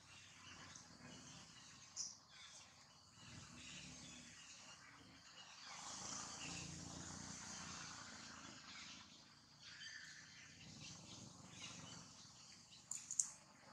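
Faint forest ambience: insects making a high, even buzz, with a couple of brief sharp clicks, one about two seconds in and one near the end.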